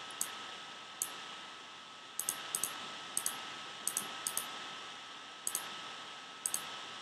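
Computer mouse clicking: a dozen or so sharp clicks at irregular spacing, many in quick press-and-release pairs, over a steady hiss and a faint steady tone.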